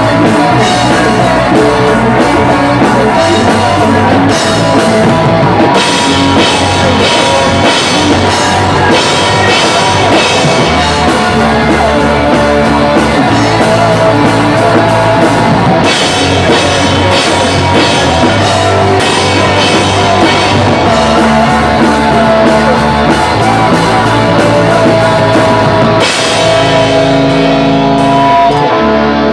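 Pop-punk band playing loud: a drum kit with crashing cymbals driving distorted electric guitars and bass. Near the end the cymbals and drums drop out, leaving the guitars and bass ringing on.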